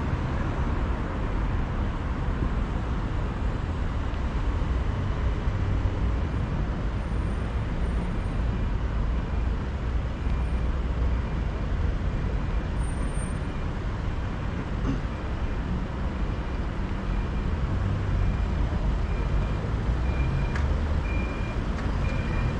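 Steady city street traffic noise from cars on the road. From about halfway through, a pedestrian crossing signal gives a faint high beep about once a second, growing clearer in the last few seconds.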